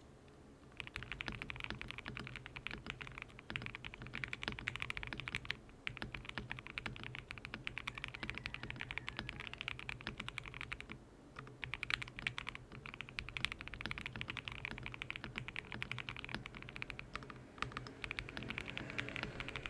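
Fast typing on a GMK67 mechanical keyboard with lubed and filmed Gateron Box Ink Pink linear switches, Shenpo 6001 keycaps and a one-layer tempest mod. A rapid run of keystrokes starts about a second in, with short pauses about 6, 11 and 17 seconds in.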